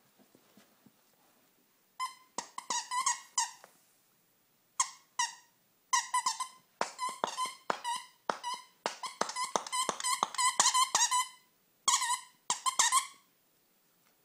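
Squeaker in a plush snowman dog toy squeaking over and over as a corgi puppy chews it, in quick runs of short, pitched squeaks. The squeaking starts about two seconds in, pauses briefly twice, and stops about a second before the end.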